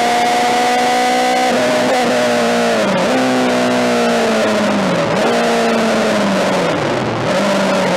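BMW M3 DTM race car's four-cylinder engine heard onboard at high revs. Its pitch climbs for a second and a half, then drops and swoops down and back up three times as the revs rise and fall through gear changes.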